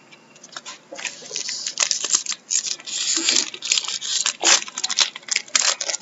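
Trading cards being handled and flipped through: a run of quick papery rustles, slides and clicks, with a longer rustle about three seconds in.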